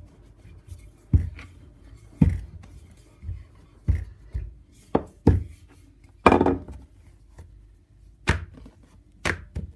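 Wooden rolling pin rolling out dough on a countertop: about eight uneven knocks as the pin strikes the counter, one a little longer than the rest.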